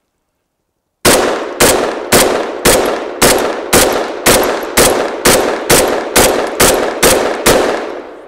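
Rapid semi-automatic fire from a Kel-Tec .308 bullpup rifle: about fourteen shots, about two a second, beginning about a second in. Each shot rings out through the woods, and the echo of the last fades away near the end.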